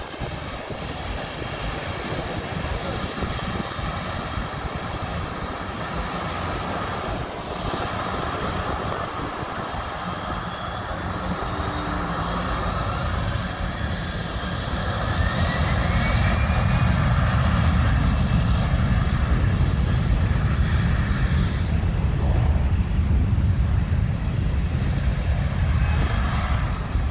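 American Airlines narrow-body twin-jet airliner taxiing with its engines whining steadily. About halfway through, a rising whine comes in and the sound grows louder, with a heavy low rumble.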